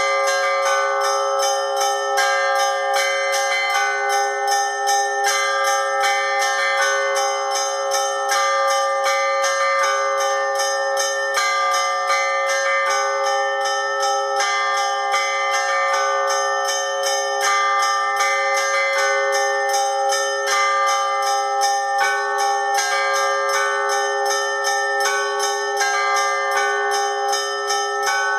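Church bells rung in a continuous Russian-style peal (kolokolny zvon): small bells struck several times a second in a changing pattern over the steady ringing of larger bells.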